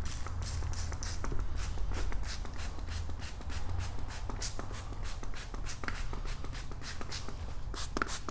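A drill-driven 3000-grit sanding disc wet-sanding a plastic headlight lens: a steady low hum with irregular scuffing and rubbing as the disc passes over the wet lens.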